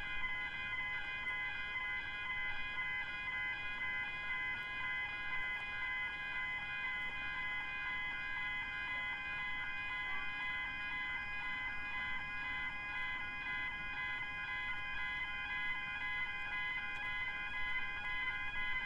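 Level crossing's electronic alarm bells (Barker Technic Type 2 and overpowering alarms) ringing steadily with a fast repeating ding, several bells sounding together, while the crossing is active for a train.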